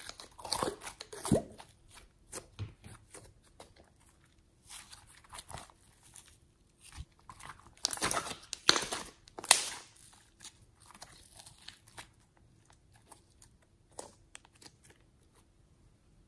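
Glitter slime being pulled out of a jar and stretched and squeezed by hand, making irregular sticky crackles and pops. The crackles come in clusters about a second in and again around eight to ten seconds in, and thin out to a few faint clicks near the end.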